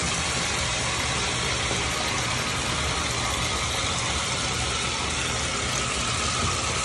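Bathtub faucet running steadily, water pouring into the tub and churning up foaming bath soak.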